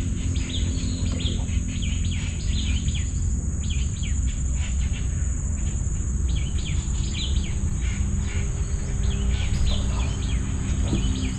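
Birds chirping over and over above a steady high-pitched insect drone, with a steady low rumble underneath.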